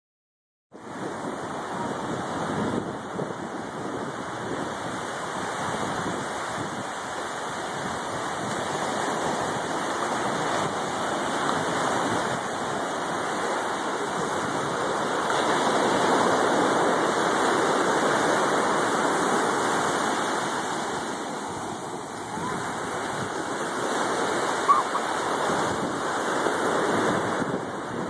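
Surf washing up on a sandy beach, a steady rushing that swells and eases, loudest about halfway through. A short sharp sound stands out briefly near the end.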